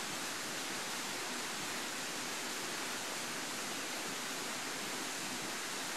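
A steady, even hiss of rushing noise that holds the same level throughout.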